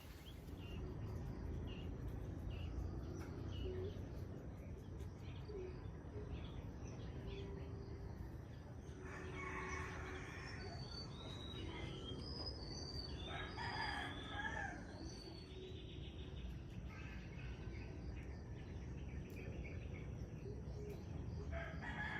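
Rooster crowing three times, long calls about nine and thirteen seconds in and again at the end, with small birds chirping over a steady low background noise.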